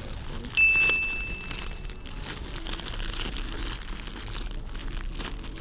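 Clear plastic bakery bag crinkling as hands turn and handle the bread inside it. About half a second in, a sharp high ding rings out for about a second and a half, the loudest sound.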